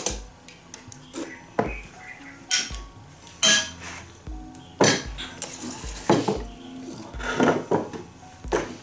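A metal ladle clinking and scraping against a stainless steel basin and porcelain bowls as porridge is served, with chopsticks tapping on the bowls. There is a series of separate sharp clinks every second or so.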